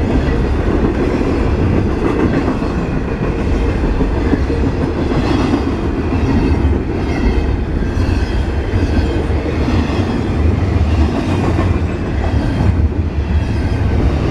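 Intermodal freight train's container cars passing close at high speed, with a steady loud rumble and clatter of steel wheels on the rails.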